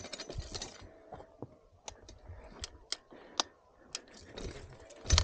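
Mountain bike clicking and rattling over the trail: a handful of sharp, irregular clicks about half a second apart, with a louder knock near the end.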